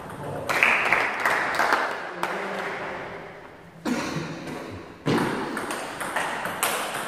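Table tennis ball clicking back and forth off the rubber paddles and the table during a fast rally, each click ringing on briefly in the hall.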